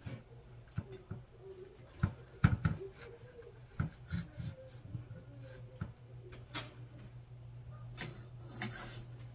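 Scattered clicks and knocks from a curtain and curtain rod being handled as curtains are hung, the loudest about two and a half seconds in, with fabric rustling near the end. A steady low hum runs underneath.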